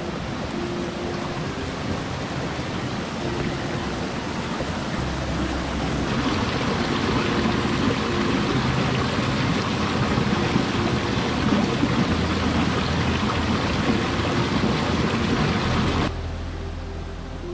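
Rushing creek water, a steady hiss that gets louder about six seconds in and drops off suddenly near the end, with soft sustained background music notes underneath.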